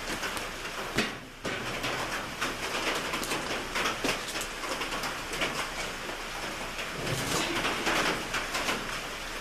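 Rain drumming steadily on a metal garage roof, a dense patter of countless small taps. A single knock is heard about a second in.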